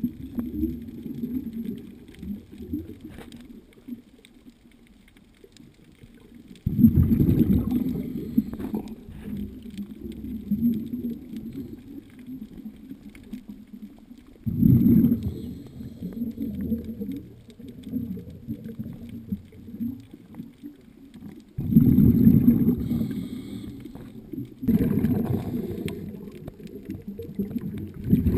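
Muffled underwater rumble of a diver's exhaled bubbles, heard through a camera housing. It comes in low surges that start suddenly every few seconds, five times, and fade away in between.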